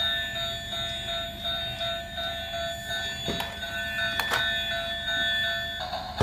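Battery-operated toy train playing its electronic sound effect: steady, alarm-like electronic tones that hold at fixed pitches and stop shortly before the end. Two short knocks about three and four seconds in, as the plastic toy is handled and set down on the floor.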